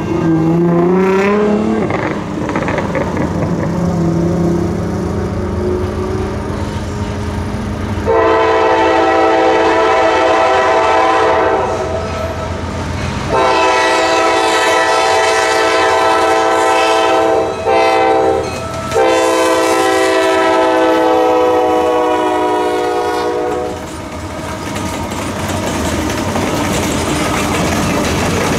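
A diesel freight locomotive approaches, sounding its chime air horn in the grade-crossing pattern: long, long, short, long, the blasts beginning about eight seconds in. After the horn, the train of covered hopper cars rolls past with a steady rumble and wheel clatter on the rails. A low drone rises in pitch in the first couple of seconds.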